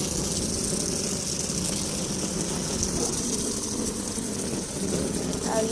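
Heavy storm rain and strong wind: a steady rush of rain with a low rumble of wind buffeting the phone's microphone.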